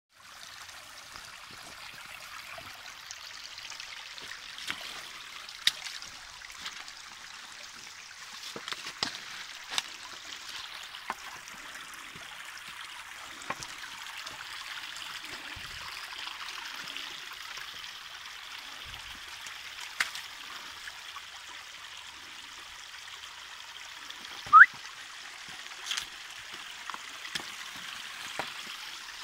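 Small, shallow forest stream trickling over stones, a steady rush of water, with scattered clicks and snaps throughout and one short, loud rising chirp near the end.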